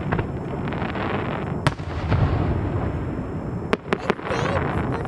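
Fireworks display: aerial shells bursting over a continuous rumble and crackle, with a sharp bang about a second and a half in and a quick cluster of bangs near the end.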